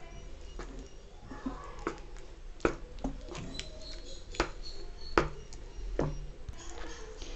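A spatula stirring a thick, sticky cornflour halwa mass in a pan, with soft squelching and several sharp knocks of the spatula against the pan, the loudest in the latter half.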